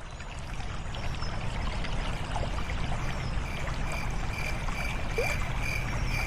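Paradise-garden nature ambience fading in: steady running water like a stream, with scattered short chirps. About halfway in, a high tone starts pulsing about twice a second.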